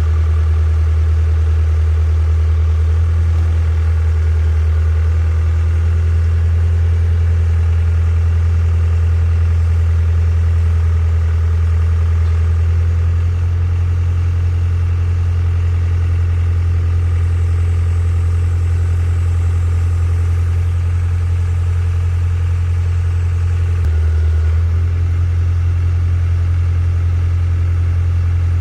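Hitachi EX60 excavator's diesel engine running steadily at idle, a loud low hum. The tone shifts slightly about halfway through and dips briefly once about three-quarters of the way in.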